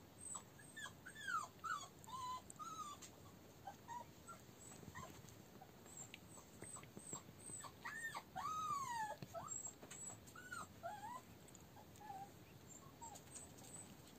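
Month-old Russian toy terrier puppies whimpering in a string of short, high whines that rise and fall in pitch, with a longer arching whine about eight and a half seconds in.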